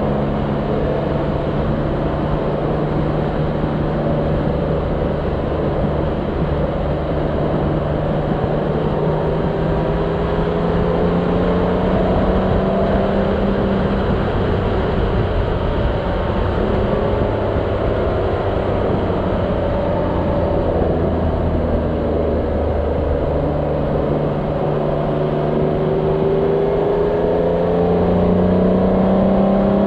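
Motorcycle engine running at road speed under wind and road noise. The engine pitch sinks slowly through the middle and rises steadily near the end as it accelerates.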